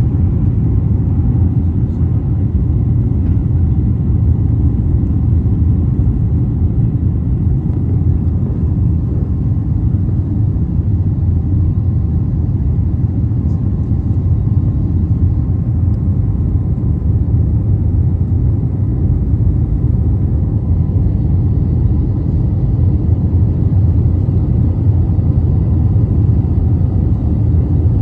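Steady low roar of a jet airliner's engines and rushing air, heard from inside the cabin during the climb after takeoff, with a faint steady whine above it.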